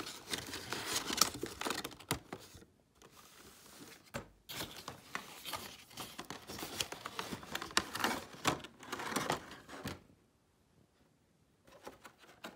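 Cardboard toy box being opened by hand and its contents pulled out: cardboard flaps scraping and plastic packaging crinkling, with a short pause about three seconds in, stopping near the end.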